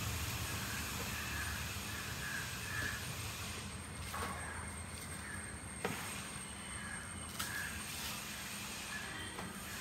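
Crows cawing in the distance over a quiet outdoor background, with three short sharp snaps spread through.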